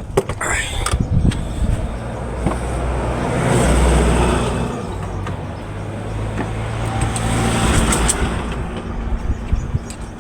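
Motor vehicle noise, an engine hum with tyre and road haze, swelling and fading twice, around four and eight seconds in, like vehicles going past.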